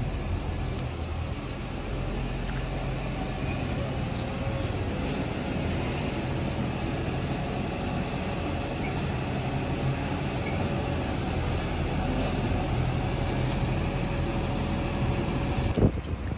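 Garbage truck's diesel engine running steadily with a low, even hum. A single sharp click comes near the end.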